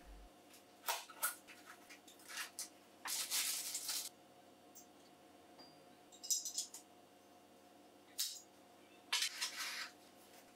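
Hands handling cardboard packaging and a metal dosing ring: short scrapes, rustles and light taps. There is a longer slide about three seconds in, and a box lid is opened near the end.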